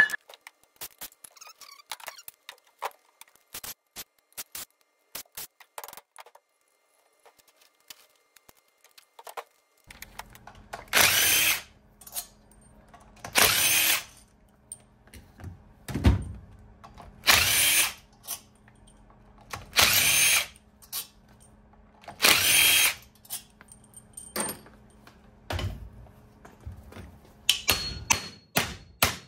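Cordless drill-driver backing bolts out of an electric motor's casing in repeated runs of about a second each, with short pauses between. Small clicks of handling parts and tools come first.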